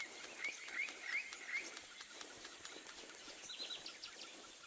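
Faint nature ambience of small animals chirping: four short chirps in quick succession in the first second and a half, then a few higher, quicker chirps a little after three and a half seconds, over a light hiss.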